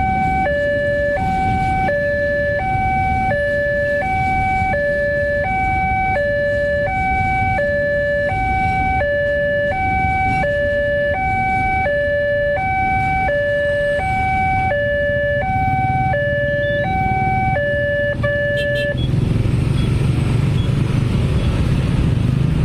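Railway level-crossing warning alarm sounding two alternating electronic tones, about one high-low pair a second, over road-traffic noise. It cuts off about 18 seconds in, and vehicle engines grow louder after that.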